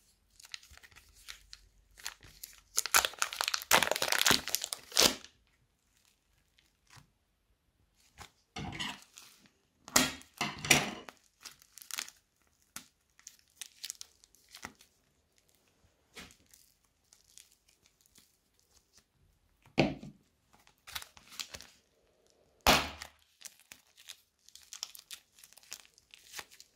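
A plastic wrapper crinkling and tearing as a block of soft clay is unwrapped, loudest a few seconds in. After that come scattered short crackles and soft squishes as hands pull apart and press soft clay.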